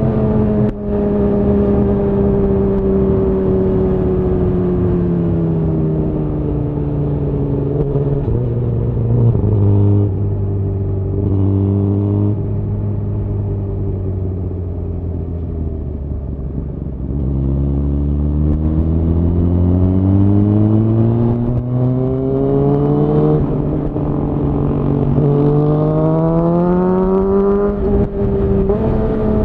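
Suzuki GSX-R1000R's inline-four engine through a Yoshimura R-11 SQ exhaust, heard on the move. The engine note falls as the bike slows, holds low for several seconds, then climbs again through the gears with a short dip at each upshift.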